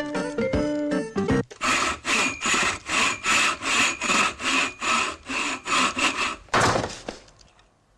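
A hand saw cutting wood in quick, even strokes, about two and a half a second, after a short snatch of music; a last, louder stroke comes near the end.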